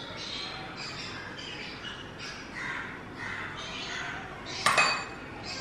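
Birds calling in the background: short high calls repeating about twice a second. One sharp clink sounds a little before the end.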